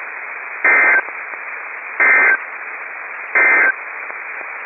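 NOAA Weather Radio SAME end-of-message code: three short bursts of warbling digital data tones, each about a third of a second long and about 1.35 s apart, over steady radio static hiss. The bursts signal the end of the weekly test message.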